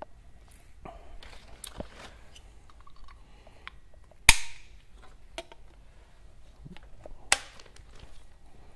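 Snap-together manifold modeling blocks being handled, twisted and clicked together: scattered light clicks and handling noise, with one sharp snap about four seconds in and another about seven seconds in.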